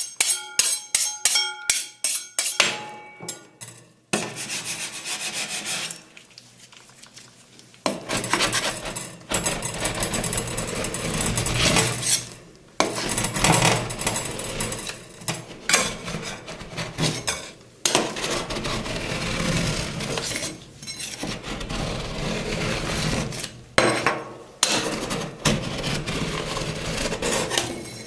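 Metal spatulas scraping across a cold steel ice-cream plate in long rasping strokes with short pauses, spreading and rolling the watermelon ice cream. It opens with a couple of seconds of quick metal taps that make the plate ring.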